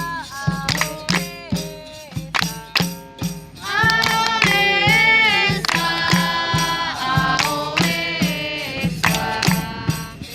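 Capoeira music: a tambourine-like pandeiro beating a steady rhythm, with singing coming in strongly about four seconds in.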